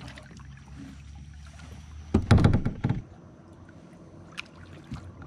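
Kayak paddle strokes and water against a plastic sit-on-top kayak, with a louder bumping, rumbling burst about two seconds in that lasts under a second.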